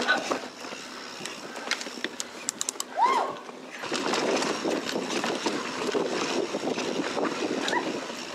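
Mountain bike rolling down a dirt trail: the tyres crunch over dirt and dry leaves while the bike rattles and clicks. A brief squeal rises and falls about three seconds in, and the tyre noise grows louder and denser after about four seconds.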